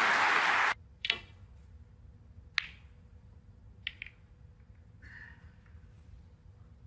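Applause that cuts off abruptly under a second in, then the sharp clicks of snooker balls being struck and colliding: one about a second in, another a second and a half later, and a quick double click near four seconds as the cue ball reaches the pack of reds.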